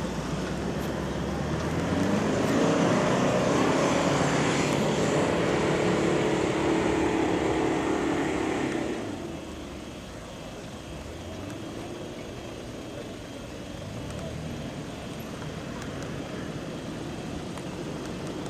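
A 4x4 off-road vehicle's engine working hard under load, loud for several seconds, then dropping away about halfway through to a quieter, steadier running.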